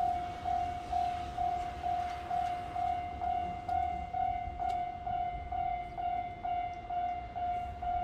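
Japanese level-crossing warning bell starting up suddenly and ringing steadily at about two rings a second, a single electronic tone repeated over a low background rumble.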